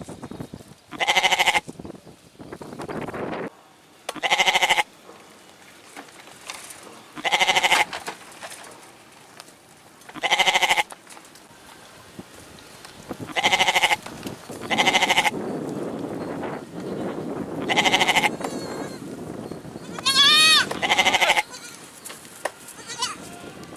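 Goats bleating, about eight loud bleats two to three seconds apart, with softer rustling of dry branches between them. A short warbling high call swoops up and down near the end.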